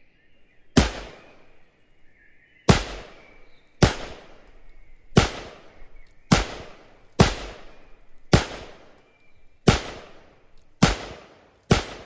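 Ten single gunshots from an AR-style rifle, fired one at a time roughly a second apart, each a sharp crack with a ringing tail that dies away.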